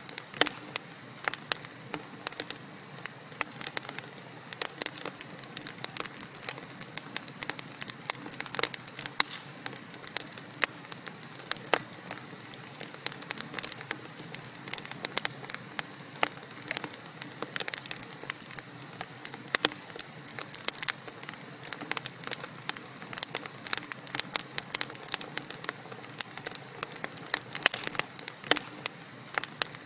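Wood fire burning in a fireplace: a steady soft hiss with constant irregular crackles and pops from the burning logs.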